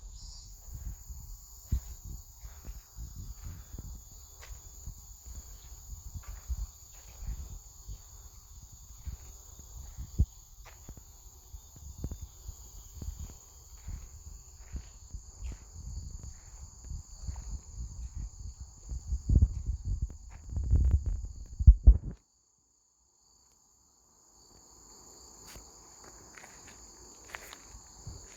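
Footsteps at a steady walking pace under a continuous high-pitched chorus of trilling insects. The steps grow louder shortly before all sound cuts out abruptly for about two seconds; the insect chorus then comes back without the steps.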